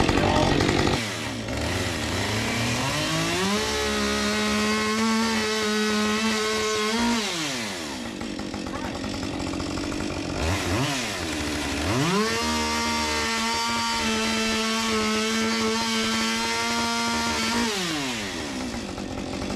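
Husqvarna 550 XP two-stroke chainsaw revving up and cutting through boards twice, holding a steady high pitch through each cut and dropping back to idle between the cuts and near the end.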